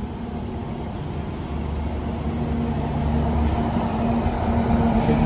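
A motor vehicle's engine running close by, with a steady low hum that grows gradually louder.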